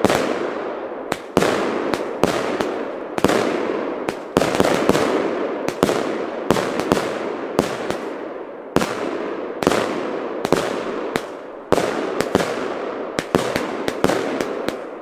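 Aerial firework battery firing shot after shot: sharp bangs about one or two a second, each with a crackling tail as the shells burst overhead.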